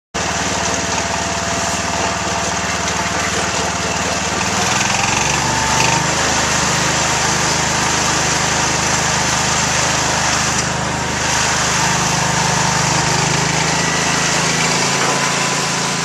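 1977 Wheel Horse C-120 garden tractor's 12 hp single-cylinder Kohler engine running steadily, picking up speed about five seconds in and then holding at the higher speed.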